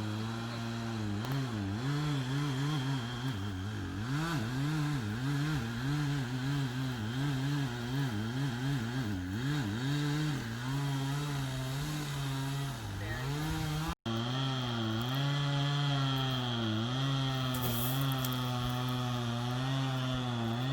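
Two-stroke chainsaw running under load as it cuts wood, its engine note repeatedly dipping and recovering as the chain bites. There is a momentary break about two-thirds of the way through.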